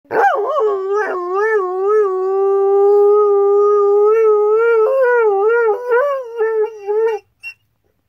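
Retired racing greyhound howling: one long howl that wavers up and down, then holds fairly steady through the middle, and breaks into short rising-and-falling notes near the end before stopping.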